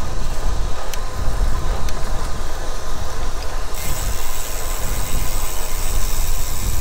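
Wind rumble on a bike-mounted camera's microphone, with tyre and road noise from a road bike rolling along. A steady high hiss comes in about four seconds in.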